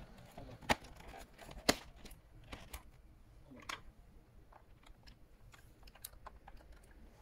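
Plastic back cover of a Lenovo desktop keyboard being pressed and snapped into place. Two sharp snaps about a second apart near the start, then lighter scattered clicks and taps.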